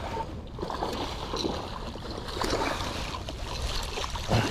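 Water sloshing and splashing in the shallows, with a louder thump near the end.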